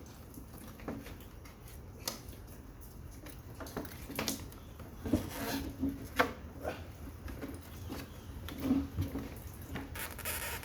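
Plastic and metal parts of a wall-mount air conditioner being handled during disassembly: scattered clicks and knocks, a cluster of louder ones partway through, and a short scraping rasp near the end.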